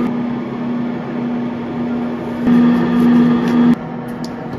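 Steady electrical hum of a running CO2 laser engraver setup, at one low pitch. It swells for about a second midway, then drops back, with a few faint clicks near the end.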